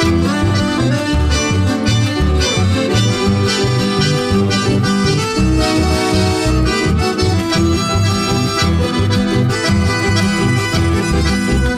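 Background music led by an accordion, over a steady bass beat.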